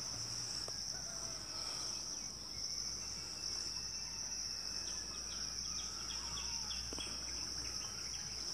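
Crickets trilling in one steady, unbroken high-pitched chorus.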